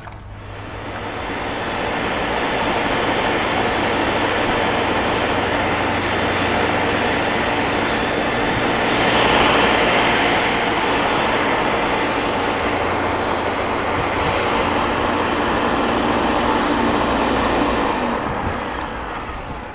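Countertop electric blender running, grinding coconut with water into coconut milk. The motor builds up over the first two seconds, runs steadily, and winds down near the end.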